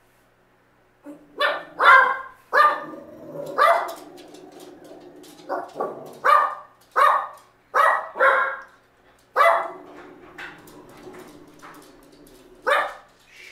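A dog barking: about a dozen sharp barks at uneven intervals, starting about a second in and running until near the end.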